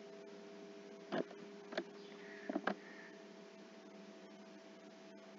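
Steady low electrical hum on the recording, with four short sharp clicks between about one and three seconds in.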